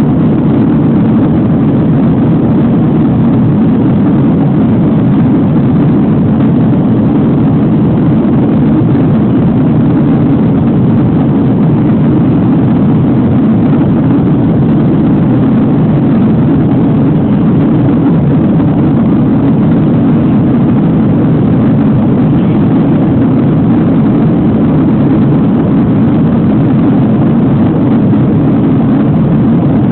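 Cabin noise inside a jet airliner in flight: the engines and airflow make a loud, steady, low rumble that does not change.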